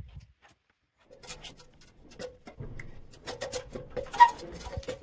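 Footsteps scuffing and crunching on sandy rock, a run of irregular sharp scrapes and clicks that starts about a second in.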